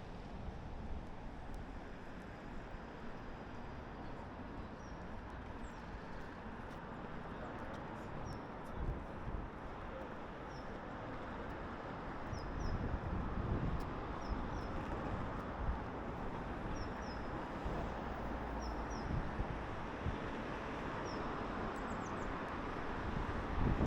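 Steady city traffic hum, with a small bird giving short high cheeps every second or two, often in pairs.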